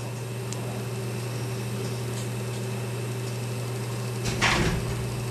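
Steady low electrical hum over room noise, with a brief rustle about four and a half seconds in.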